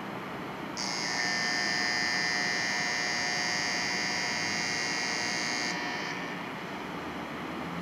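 Station platform departure bell: a steady electronic ringing that starts about a second in and stops about five seconds later, over a steady background hum. Right at the end a low rising whine begins, the 500 Series Shinkansen's traction motors starting to pull away.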